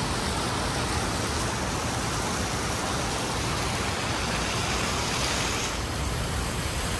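Large fountain's water jets splashing in a steady, even rush.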